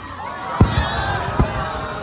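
Crowd of spectators chattering, with two deep booms of fireworks bursting about a second apart.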